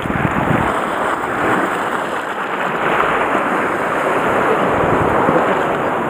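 Sea surf washing over and churning against the shore rocks: a steady rush of water noise that builds slightly partway through.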